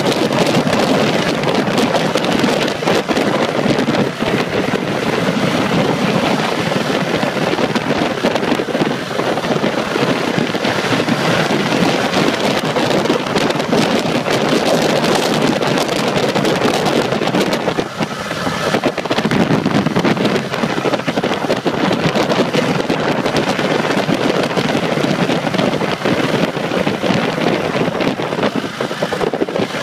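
Steady wind rush buffeting the microphone of a 2010 Ducati Multistrada riding at about 30 to 50 mph, with the bike's engine and tyre noise mixed underneath.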